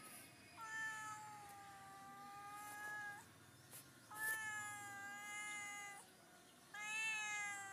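Domestic cat giving three long, drawn-out meows, the first the longest, each held fairly level and sagging slightly in pitch toward its end.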